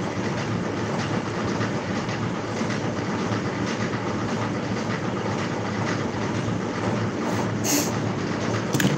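Washing machine running: a steady, dense mechanical noise, with a brief hiss near the end.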